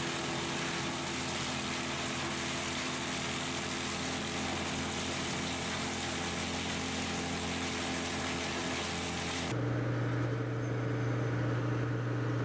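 A wood chipper's diesel engine runs steadily with a constant rushing noise. About nine and a half seconds in, the sound cuts abruptly to a different machine's deeper, steady engine hum.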